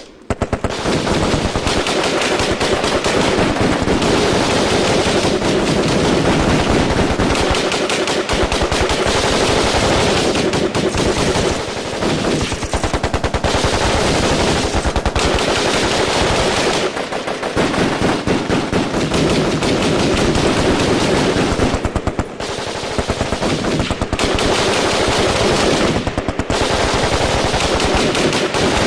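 Firefight: automatic gunfire in long, nearly continuous bursts of rapid shots, with a few short lulls.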